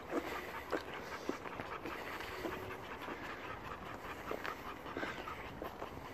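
Two dogs, an American Staffordshire terrier and a shepherd dog, panting steadily while they walk at heel on a leash.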